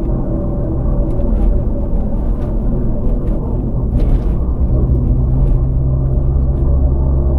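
Land Rover Freelander driving: a steady low engine and road rumble, with the engine note settling into a steadier hum about halfway through and a few faint ticks along the way.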